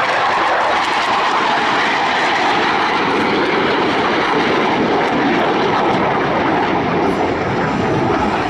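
Loud, steady jet noise from Blue Angels F/A-18 Hornets in flight.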